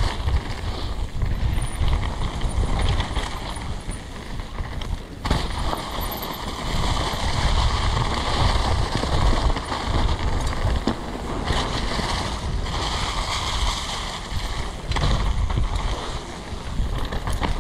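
Mountain bike tyres rolling fast over a dirt trail strewn with dry fallen leaves, with wind rumbling on the action camera's microphone.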